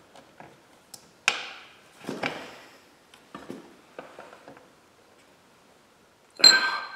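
Knocks and clacks of a dirt bike's rear wheel being handled into the swingarm, the brake disc bumping the caliper as it is worked between the pads: a sharp knock about a second in, another about two seconds in, then a few light ticks. Near the end, a louder metal clank with a brief ring.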